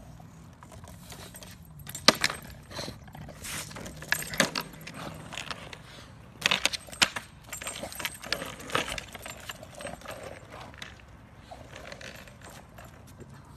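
Skateboard rolling over rough asphalt with a bulldog riding it, clacking and rattling irregularly. The sharpest clacks come about two seconds in and again just past the middle.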